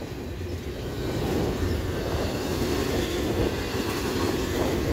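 BNSF double-stack intermodal train's well cars rolling past: a steady rumble of steel wheels on the rails.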